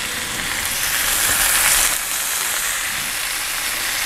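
Bacon-wrapped savoy cabbage rolls sizzling in clarified butter on a charcoal-heated plancha as they are laid on, a steady hiss that grows louder briefly about a second and a half in. Described as sounding really great.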